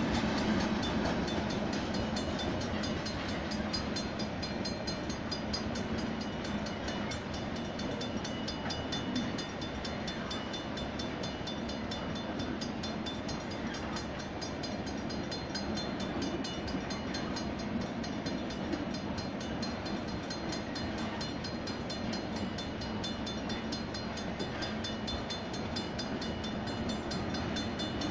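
Freight train cars rolling steadily past on the rails: a continuous rumble and rattle of wheels and car bodies.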